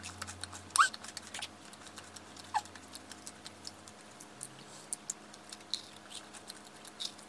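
Close-up biting and chewing of an air-fried financier with a crisp crust: a string of small, crackly crunches, with two short squeaky mouth noises about one and two and a half seconds in.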